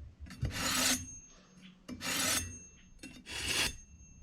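A steel knife blade drawn along a ceramic honing rod: three rasping strokes, each about half a second long, roughly a second and a half apart. The strokes hone the freshly sharpened edge.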